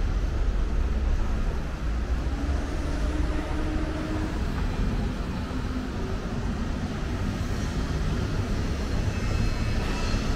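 Steady low rumble of vehicle noise, with a faint engine-like hum that wanders slightly in pitch.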